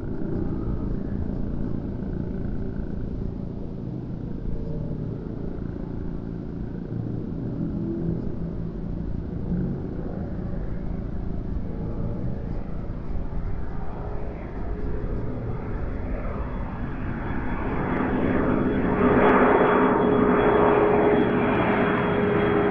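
A large radio-controlled model jet's engine is heard in flight, a steady rumbling rush that grows louder over the last few seconds as the jet makes a low, close pass. A high steady whine comes in as it passes.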